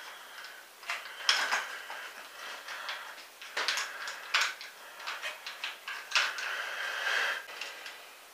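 Irregular metal clinks and rattles of a bicycle chain and small bike parts being handled, in several short clusters.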